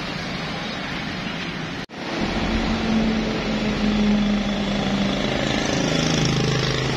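Road traffic noise from passing motorbikes and cars. The sound drops out for an instant about two seconds in, then an engine hum comes in and shifts slowly in pitch as vehicles go by.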